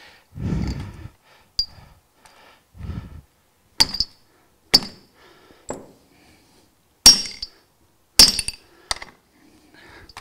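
Sharp metallic clinks and knocks, about seven at uneven intervals, as steel parts knock inside a Dixie Chopper mower's spindle housing while a stuck bearing and seal are worked loose. Two duller low thumps come in the first few seconds.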